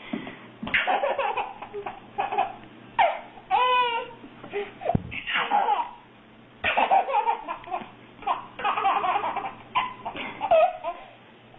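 A baby laughing hard in repeated fits, with short pauses between them.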